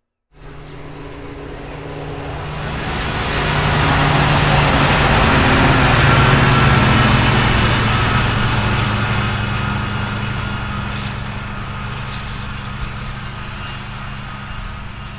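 Plasser & Theurer 09-3X track tamping machine travelling past under its own diesel power: a steady engine drone with the rumble of wheels on rail, rising to a peak about six seconds in and fading as it moves away.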